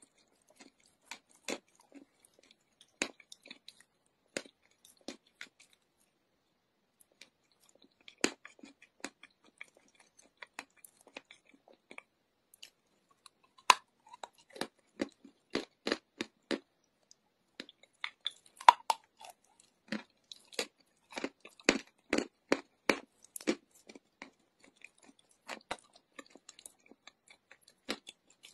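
Close-up crunching as a person bites and chews chalk: sharp, separate crunches, sparse at first with a pause of about two seconds, then coming thick and fast through the second half.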